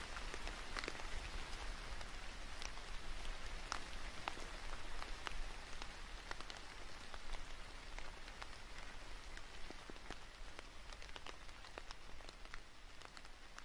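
Steady rain falling on tree foliage, an even patter with many scattered sharp ticks of single drops striking the leaves.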